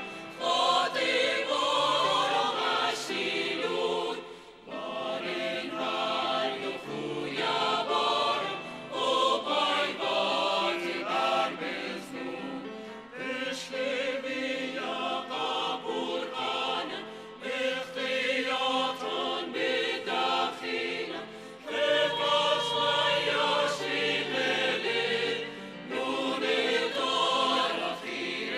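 A mixed choir of women's and men's voices singing together in sustained phrases, with a brief break about four and a half seconds in.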